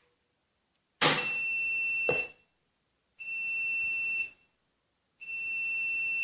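Bosch Logixx 8 washing machine's end-of-programme signal: three long, high beeps, each about a second long and about two seconds apart, marking the finished wash cycle.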